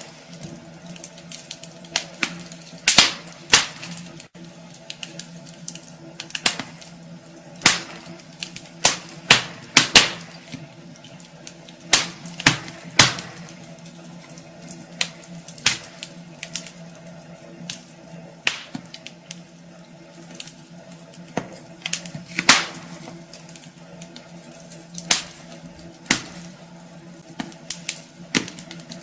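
Wood fire in a fireplace crackling, with irregular sharp pops and snaps, some in quick clusters and some spaced apart, over a steady low hum.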